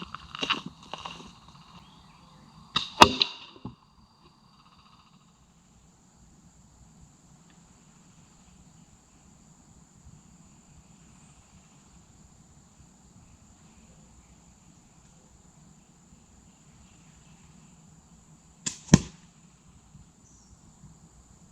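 Slingshot shots at a target: a few small sharp clicks in the first second, a loud sharp crack about three seconds in, and another loud crack near the end. A faint steady high-pitched tone runs in the background from about five seconds in.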